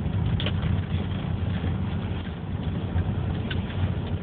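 Steady low rumble of a Subaru Forester driving on snowy city streets, heard from inside the cabin, with a couple of faint ticks.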